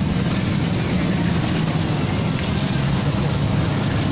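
Steady low hum of a motor vehicle engine running nearby, with street traffic noise.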